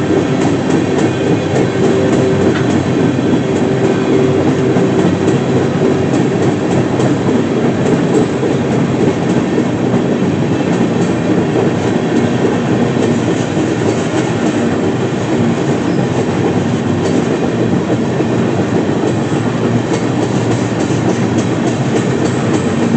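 A moving freight train heard from on board, out on a car's open end platform. The wheels and running gear on the rails make a loud, steady rumble and rattle, with scattered clicks from the track.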